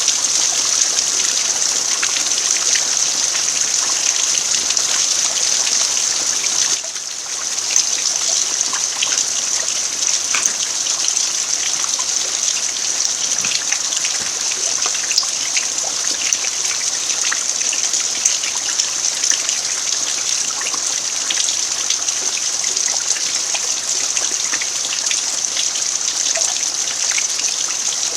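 Steady rain falling on an earthen yard: an even hiss with many separate drops pattering through it, briefly dropping in level about seven seconds in.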